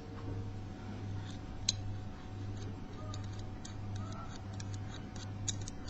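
Lever-lock pick and tension wire working inside a small brass four-lever cabinet lock: faint, irregular metallic clicks and ticks, more frequent in the second half, as the pick lifts the levers. A steady low hum runs beneath.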